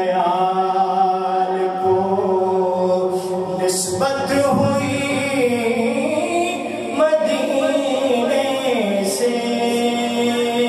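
A man singing a naat unaccompanied into a microphone, holding long notes that slowly glide up and down in pitch.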